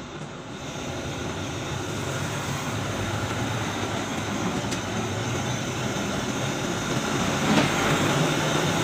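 Hose-fed gas torch flame blowing steadily against a copper radiator core, a steady rushing noise that grows louder over the first few seconds. The flame is drying the wet core after a water leak test.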